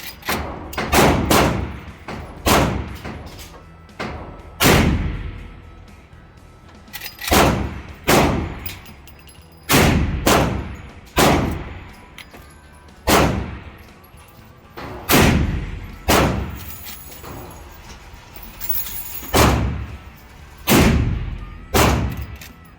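Repeated gunfire: some eighteen shots, irregularly spaced a second or two apart with a few in quick succession, each followed by a ringing echo tail.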